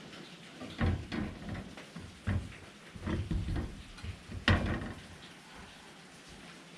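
A handful of irregular knocks and clunks, like objects being handled or a door or drawer being moved, the loudest about four and a half seconds in, over a steady background hiss of rain.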